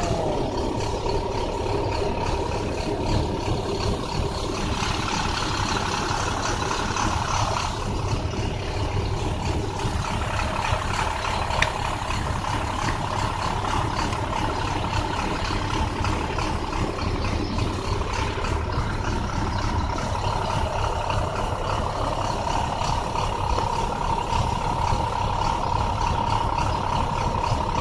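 2009 International bus engine running steadily with a bad misfire. There is a single sharp click about twelve seconds in.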